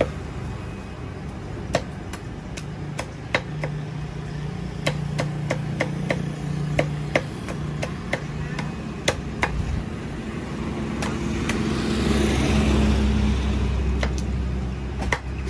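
A motor vehicle passing by: a steady low engine hum, then a swell of engine and road noise that is loudest about twelve seconds in and fades again. Sharp, irregular clicks are scattered throughout.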